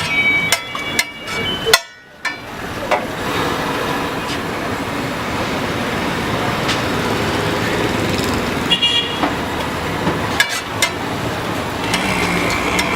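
Busy roadside traffic noise with vehicle horns honking several times: a few toots near the start, another around the middle and one near the end, over a steady wash of traffic and stall noise with occasional clicks.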